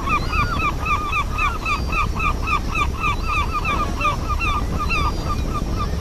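Gulls calling: a fast, steady run of short, repeated calls, several a second, that thins out near the end, over a constant low rumble.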